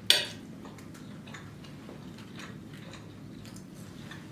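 Eating sounds: a short, sharp noisy sound just after the start, then faint scattered wet mouth clicks of slow chewing on seafood linguine.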